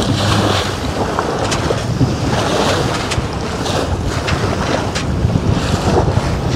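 Wind buffeting the microphone on a sailing yacht under sail, over the steady wash of waves along the hull.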